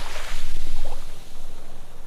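Sea waves washing onto a sandy beach: the hiss of a broken wave fades and a low rumble of surf swells, loudest between about a third of a second and a second in, then eases.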